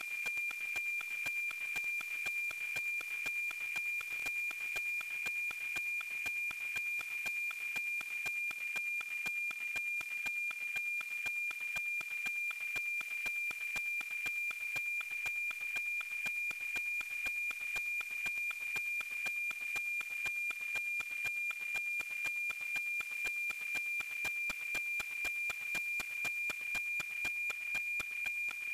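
NOAA-19 weather satellite's APT image signal, FM-demodulated by an RTL-SDR receiver: a steady high 2.4 kHz tone with a regular ticking about twice a second from the line-sync pulses. The signal is strong and clear.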